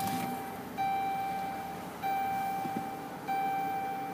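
2011 Dodge Charger's dashboard warning chime, just after the engine is started: a clear single-pitched tone about a second long, repeated about every one and a quarter seconds and fading after each onset.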